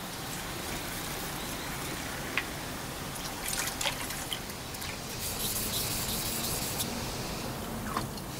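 Water trickling on a wet sharpening stone, with a small stone rubbed over the whetstone and a few light clicks of stone on stone.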